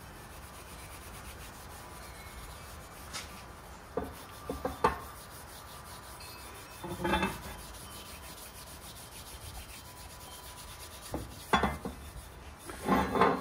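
Fine steel wool rubbed back and forth by hand along the bare steel arm of a century-old metal shear, a steady scratchy rasp: the final polish after rust removal. A few brief louder knocks and clinks come about four to five seconds in, around seven seconds, and twice near the end.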